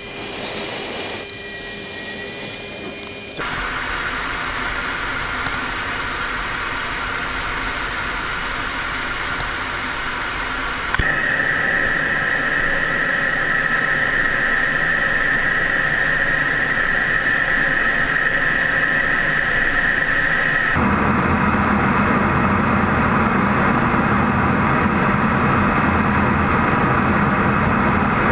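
Steady jet engine and airflow noise inside an F-16D Fighting Falcon's cockpit. It changes abruptly about three, eleven and twenty-one seconds in, and a steady high whine sits on top between the second and third changes.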